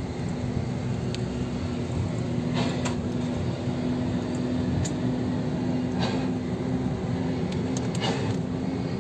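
A vehicle running steadily, with engine and road noise and a steady low hum. A few short hisses come about a third of the way in, two-thirds in and near the end.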